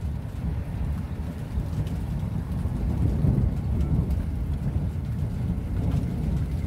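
Thunderstorm: a low rumble of thunder that swells about three seconds in and then eases, over a steady low din, with scattered raindrop ticks.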